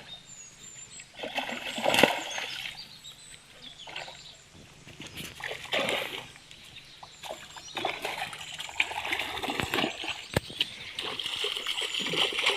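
Water splashing and sloshing in irregular bursts, loudest about two seconds in and busier again in the last few seconds.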